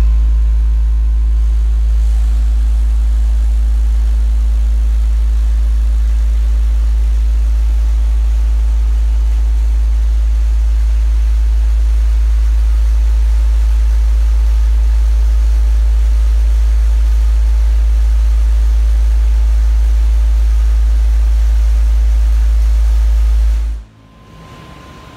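Car-audio subwoofer system in a truck playing one steady, very loud, low bass test tone, driven with about 455 watts to reach 149 dB on the SPL meter. It cuts off suddenly near the end.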